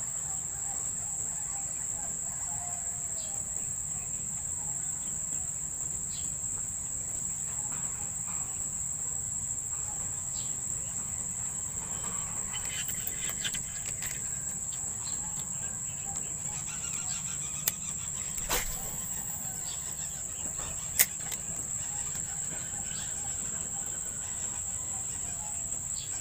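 Steady, high-pitched, unbroken insect chirring at the water's edge. A few sharp clicks come in the second half, the loudest about two-thirds of the way through.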